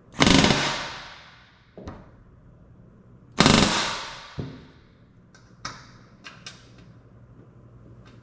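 Pneumatic rivet gun driving two solid aluminium rivets into the RV-10 horizontal stabilizer in two short bursts about three seconds apart, each ringing out through the sheet metal. Several light metal clicks follow as the tools are handled.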